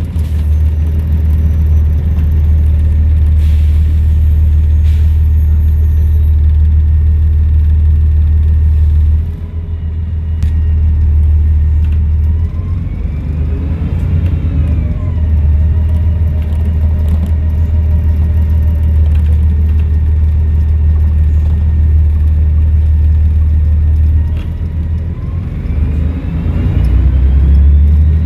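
Volvo B7RLE bus's six-cylinder diesel engine and Voith automatic gearbox running under way, with a deep steady rumble. A whine rises and falls around the middle and rises again near the end, the turbo whistling as the engine pulls.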